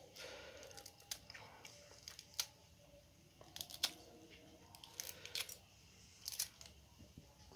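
Kitchen scissors snipping a green cheongyang chili pepper into pieces over a bowl of noodles: a string of short, sharp snips at irregular intervals, faint.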